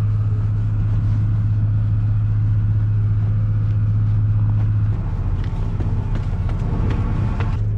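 Ship's engine running steadily at the quay, a loud low drone. About five seconds in it dips slightly and turns rougher, with a few light knocks near the end.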